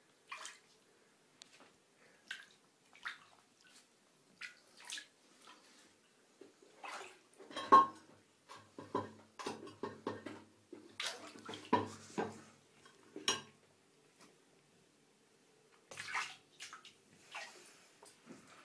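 Water splashing and sloshing in a bathtub as cats paddle through it, in irregular bursts, busiest and loudest in the middle of the stretch.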